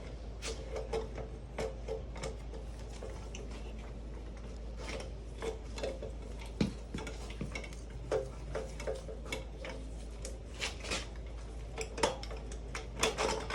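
Metal hand tools clinking and tapping against a 150cc dirt bike's rear axle and axle nut while the axle is worked loose. Scattered light clicks with an occasional short metallic ring.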